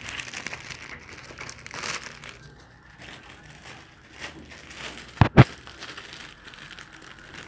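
Clear plastic bag crinkling as it is handled, then two sharp clicks in quick succession about five seconds in as a stapler snaps shut on the bag.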